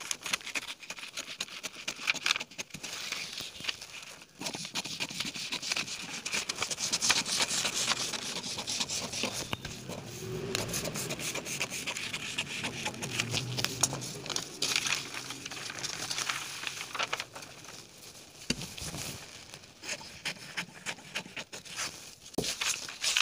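Large tailoring scissors cutting through a sheet of pattern paper in a run of snips, with the paper rustling and crinkling as it is cut and shifted.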